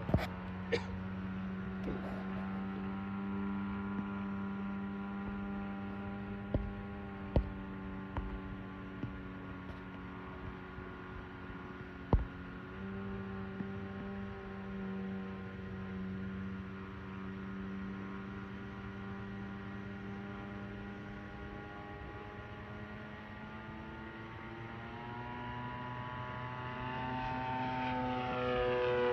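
Radio-controlled scale model Raiden fighter plane flying overhead, its motor and propeller giving a steady drone. The drone grows louder and rises in pitch near the end as the plane comes closer. A few sharp clicks cut in, the loudest about twelve seconds in.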